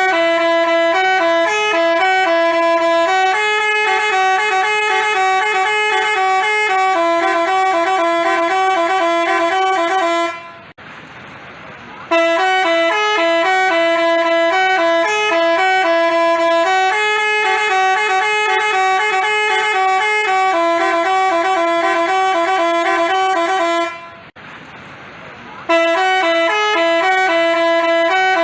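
Basuri telolet horn, a multi-tone musical bus horn, playing a looping melody of stepping, alternating notes. It stops briefly twice, at about 10 seconds in and again about 24 seconds in, then starts the tune over.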